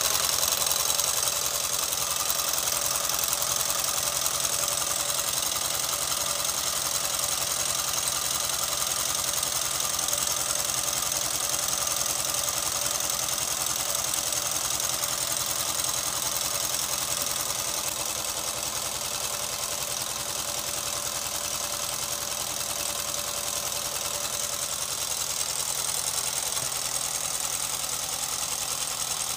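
Homemade four-cylinder radial Stirling engine built from soda cans and PVC pipe running, its wire connecting rods and steel-rod crankshaft making a rapid, steady mechanical clatter that eases slightly in level.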